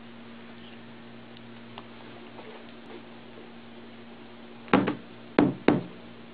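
Boom Cube speaker ottoman giving a steady electrical hum, then three loud pops through its speaker near the end as an audio cable's plug is pushed into its input jack.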